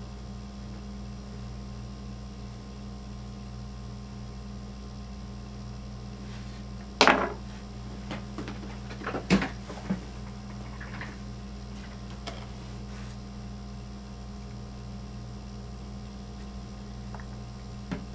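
Steady low hum with a few sharp clacks of a hand tool and small parts being set down on a hard work table. The loudest clatter comes about seven seconds in, with a few more around nine to ten seconds and one near the end.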